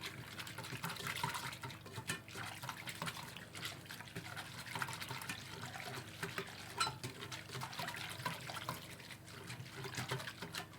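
A spoon stirring dry yeast and sugar into warm milk in a bowl: liquid swishing with irregular light clicks of the spoon against the bowl.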